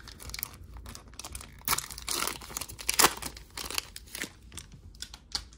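Foil wrapper of a Panini Prizm basketball card pack being torn open and crinkled by hand: an irregular run of sharp crackles and rustles, loudest about three seconds in.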